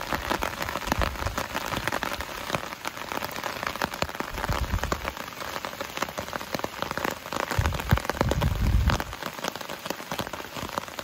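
Rain falling steadily as a dense patter of drops close by, with two brief low rumbles of wind about four and eight seconds in.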